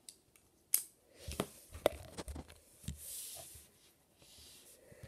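LEGO plastic pieces being handled and pressed onto a plate: a handful of small sharp clicks, with a short rubbing rustle about three seconds in.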